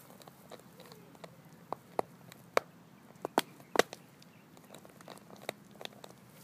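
A small dog biting and chewing a plastic water bottle: irregular sharp crackles and cracks of the plastic, with the loudest few coming in a quick cluster in the middle.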